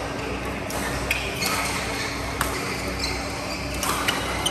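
Badminton rackets striking a shuttlecock: about half a dozen sharp hits at uneven intervals, over the steady background of play on other courts in a large hall.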